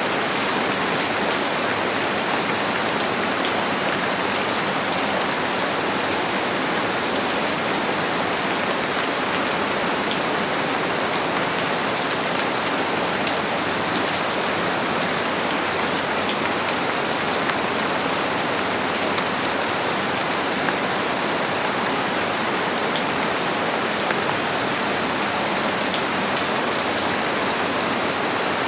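Steady rain falling on surfaces, a dense even hiss with many fine drop taps and no thunder.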